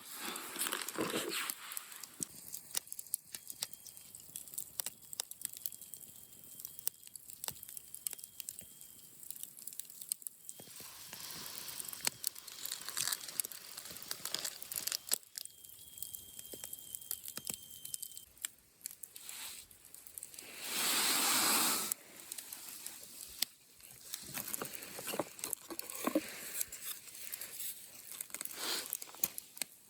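Campfire crackling with many small pops, and a louder rush of noise lasting over a second about two-thirds of the way through.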